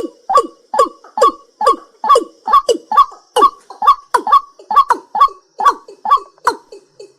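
A night bird calling over and over, about two calls a second, each a short note with a sharp onset that drops steeply in pitch, with a brief gap near the end.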